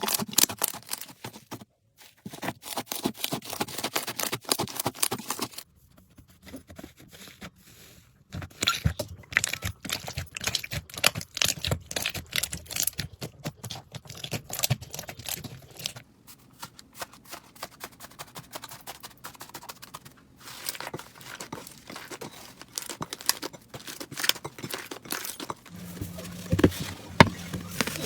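Slime being squeezed, poked and stretched by hand, giving rapid crackling clicks and pops. It comes as several short clips that change abruptly every few seconds.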